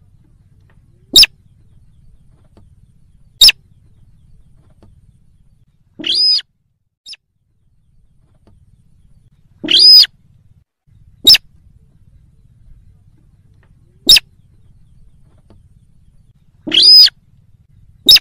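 Slaty-breasted rail (sintar) calls played as a hunting lure: short, sharp single notes a couple of seconds apart, with three longer calls in between.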